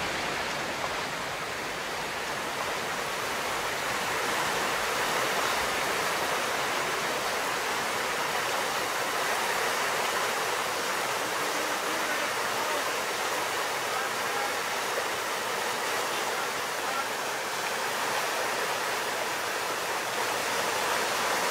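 A mountain river in flood, its fast water rushing over a submerged low concrete bridge in a steady, unbroken rush. The river is swollen with runoff from a night of heavy rain upstream.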